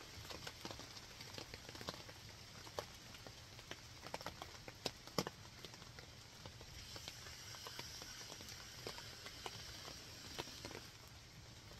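Light rain pattering on a pop-up canopy tent overhead, with scattered drops ticking irregularly.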